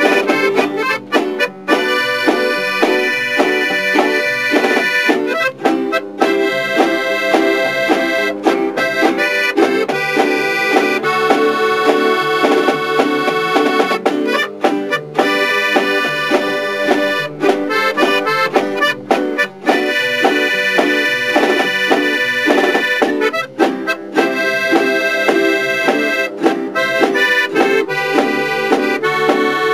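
Piano accordion playing a melody, with frequent very short breaks between notes and phrases.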